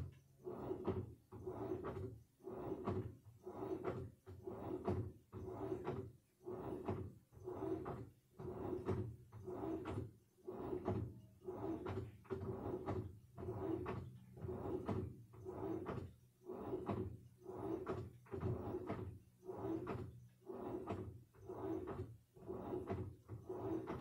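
Samsung front-loading washing machine in its wash cycle: laundry and water sloshing in the turning drum in even surges about once a second, over a low steady hum.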